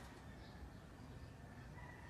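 Near silence: a faint low background rumble, with a faint high thin tone coming in near the end.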